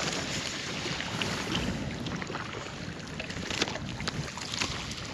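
Steady rush of wind and water, with a few light clicks and knocks scattered through it.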